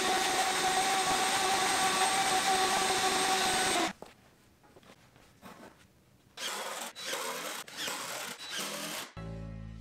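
A shop vacuum runs steadily with a whine, then cuts off suddenly about four seconds in. After a short pause, a cordless DeWalt drill runs in several short bursts.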